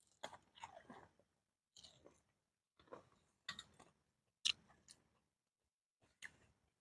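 Faint biting and chewing of boiled corn on the cob, in short separate bursts a second or so apart.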